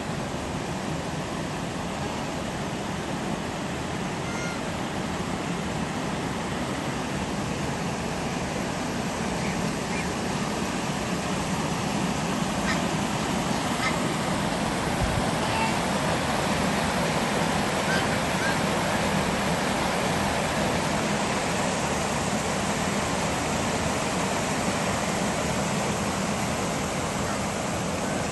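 Steady rushing noise like running water, with faint, brief bird calls scattered through it.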